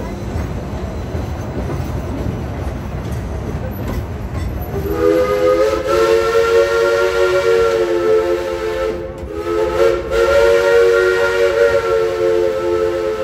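Steam train rumbling along, then the locomotive's steam whistle blows two long blasts of several tones at once, with a short break between them.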